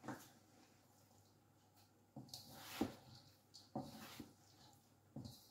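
Faint scrapes and soft knocks of a spatula and spoon stirring cooked rice in a wok, mostly quiet, with four short knocks in the second half.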